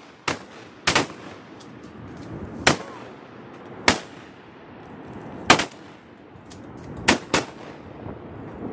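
Several duck hunters' shotguns firing at landing ducks: about seven loud, irregularly spaced shots, some in quick pairs, each with a short echo, with fainter shots in between.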